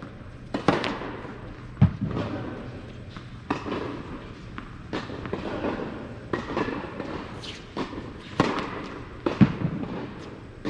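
Tennis serve and rally on an indoor hard court: sharp racket strikes on the ball and ball bounces, a hit about every second, each echoing briefly in the large hall.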